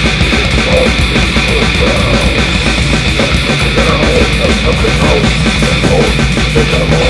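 Raw war metal recording: a dense, loud wall of distorted guitars over fast, steady drumming.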